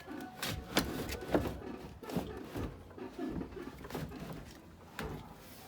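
A series of irregular sharp knocks and clicks, handling noises of objects being moved or set down.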